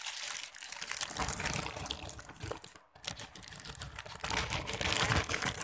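Orange plastic courier mailer bag crinkling and rustling as it is handled and cut open with scissors: a dense crackle of small clicks, with a brief pause about three seconds in.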